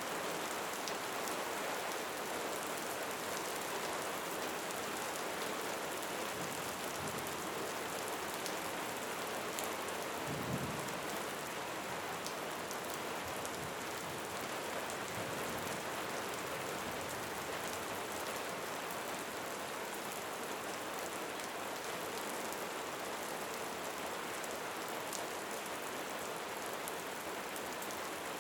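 Steady rain falling into a cenote, with fine drop hits throughout and a brief low rumble about ten seconds in.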